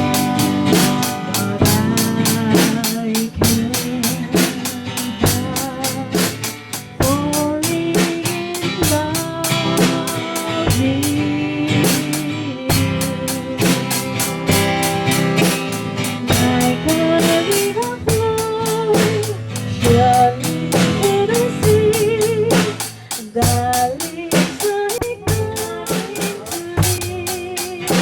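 Background music with a steady drum beat, guitar and a wavering melody line.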